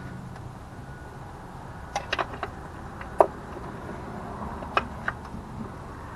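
Sharp metal clicks and clinks of a socket wrench and extension being worked on the intake manifold bolts: a quick cluster about two seconds in, the loudest single clink about three seconds in, and two more near the end, over a steady low hum.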